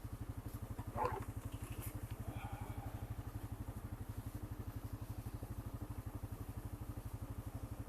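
Honda Rancher 420 ATV's single-cylinder four-stroke engine running at low speed, an even low pulse of about ten beats a second. A brief fainter noise rises over it about a second in.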